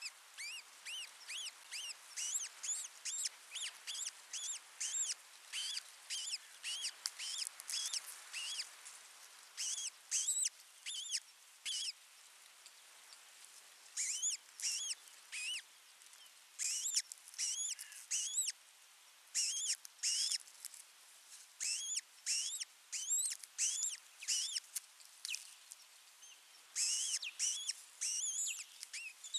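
Ospreys calling: a long series of short whistled chirps, each rising then falling in pitch, about two a second, in bouts broken by brief pauses.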